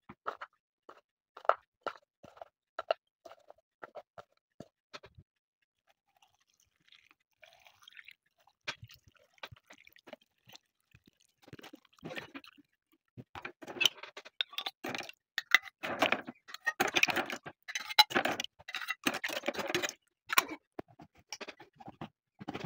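Peeled garlic cloves dropping one by one into small glass jars of pea pods, making sharp clicks. After a quiet stretch comes a brief trickle of brine being poured in. The loudest part, in the second half, is a long spell of scraping and rattling as metal lids are put on and screwed tight onto the glass jars.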